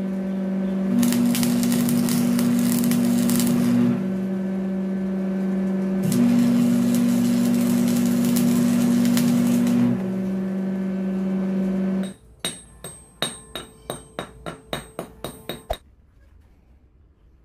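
Stick welder humming steadily, with the crackle and hiss of the arc during two welding runs on a steel sledgehammer head, the first about a second in and the second from about six to ten seconds. At about twelve seconds the hum stops, followed by about a dozen quick, ringing metal-on-metal taps.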